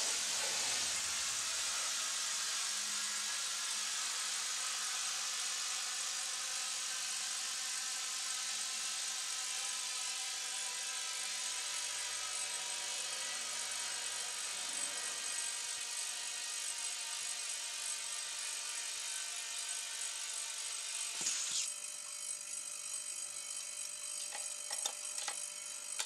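Steady hiss of compressed air rushing through a coiled air hose into an exercise ball as it inflates, supplied by a homemade air compressor built from an old refrigerator compressor. A single sharp click comes late on.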